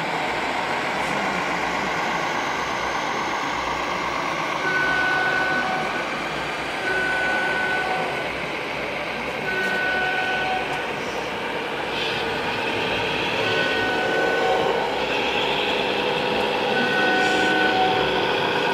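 A high electronic beep, each about a second long, sounds five times a few seconds apart over steady background noise.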